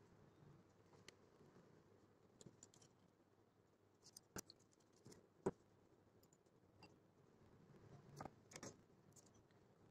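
Near silence with a handful of faint clicks and taps from a small circuit board and pin header being handled and laid down for soldering. The sharpest click comes about halfway through, and there is a pair of clicks near the end.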